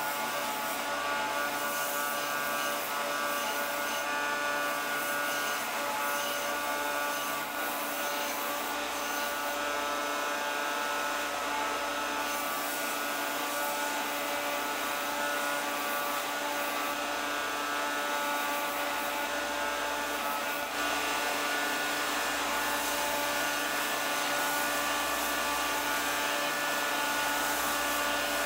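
Bench belt sander running with a steady motor whine while a curved wooden canoe yoke is pressed against its narrow vertical belt, the wood rubbing on the abrasive as its edges are shaped. It gets a little louder about two-thirds of the way through.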